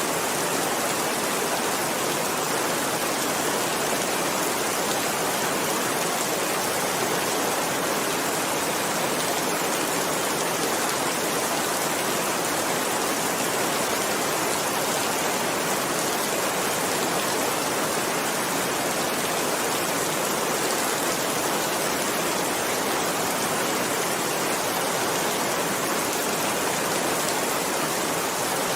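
Heavy rain falling steadily: a dense, even hiss of water without any single distinct drops.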